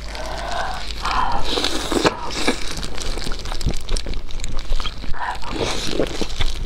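Close-up eating sounds: gloved hands rustling a lettuce leaf around a piece of braised pork belly, then crisp bites through the lettuce and wet, clicky chewing of the fatty pork.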